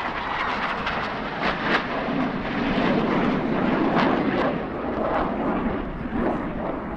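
Jet noise from Blue Angels F/A-18 Hornets flying over, swelling to its loudest around the middle and then easing.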